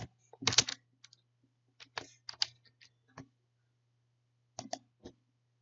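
Typing on a computer keyboard: a dozen or so short, sharp key clicks at uneven spacing, along with mouse clicks. A faint steady low hum runs underneath.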